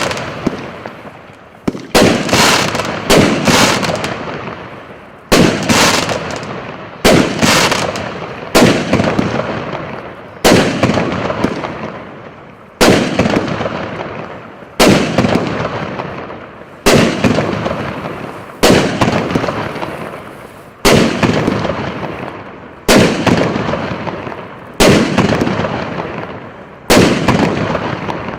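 A 48-shot, 1.25-inch consumer fireworks cake firing its shots one after another: a sharp bang about every two seconds, now and then two in quick succession, each dying away in a fading tail before the next.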